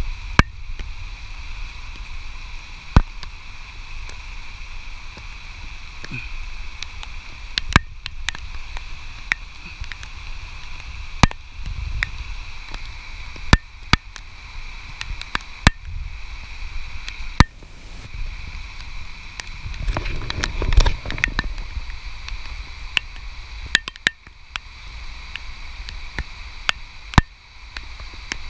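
Small hand trowel scraping and chopping into moist soil around seedlings, over a steady hiss, with sharp ticks every second or two. A louder scraping rustle comes about two-thirds of the way through.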